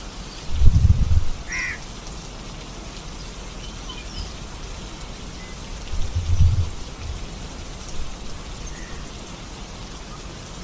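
Steady rain falling, with two short low rumbles, about a second in and again about six seconds in. A bird gives a single brief call just after the first rumble.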